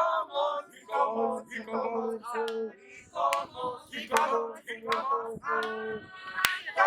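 A group of people singing together, in short sung phrases with several long held notes.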